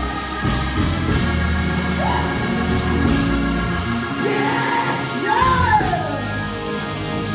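Live church worship music: held instrumental chords under men's voices singing and calling out into microphones, the voices rising strongest about four to six seconds in.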